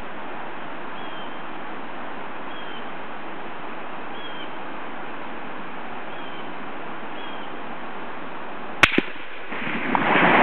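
A shot from a Savage 110 Predator bolt-action .308 rifle near the end: a sharp crack with a smaller click just after it, followed by a rolling echo that swells and slowly dies away. Before the shot there is a steady outdoor hiss with faint, regularly spaced chirps.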